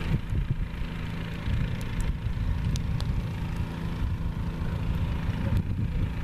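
Steady low rumble of wind on the microphone, with a few faint crackles from a small fire of dry twigs burning.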